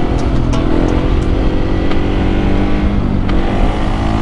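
Husqvarna 701 Supermoto's single-cylinder four-stroke engine running under throttle on the move. Its pitch dips briefly about three seconds in, then climbs again.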